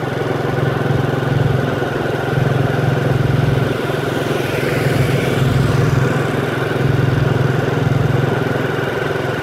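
Small motorbike engine running steadily at a slow cruise of about 30 km/h, with a steady rush of wind and road noise.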